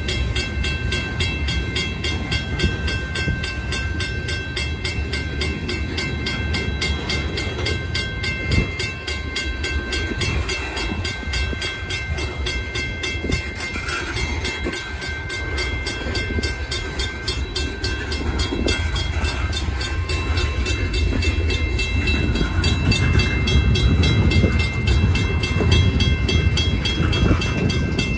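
Freight train tank cars rolling past close by: a steady rumble of steel wheels on rail with a regular clicking of wheels over the rail joints, and a thin, steady, high-pitched whine over it. It grows somewhat louder in the last several seconds.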